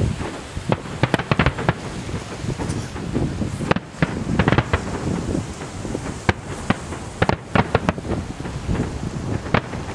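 Fireworks exploding: many sharp bangs and crackles, some in rapid clusters, over a continuous low rumble of rolling booms.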